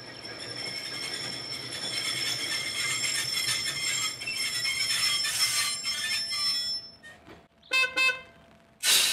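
Manx Electric Railway No. 34, a diesel-powered works locomotive, approaching and growing louder, with a high steady whine that stops suddenly about seven seconds in. Near the end its horn gives two short toots, followed by a sudden loud burst of noise.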